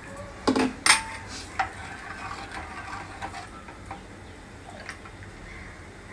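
Steel ladle clinking against a steel pot as a thin ground paste is stirred and poured back from the ladle: three sharp clinks in the first two seconds, then a few lighter taps.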